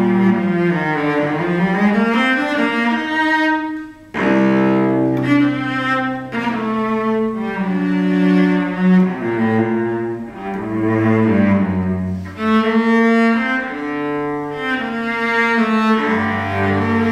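A cello, a luthier's copy of a 1740 Montagnana, bowed in a slow melody of long sustained notes. The first phrase slides down and back up in pitch, and there is a short break about four seconds in.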